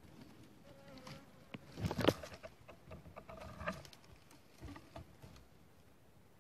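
Dry leaves and twigs crackling and rustling in short irregular bursts, loudest about two seconds in, with a faint buzzing like flying insects.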